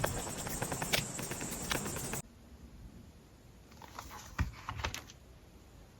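Small taps and clicks of paper and journaling supplies being handled, over a steady hiss. The hiss cuts off abruptly about two seconds in, leaving a few fainter taps.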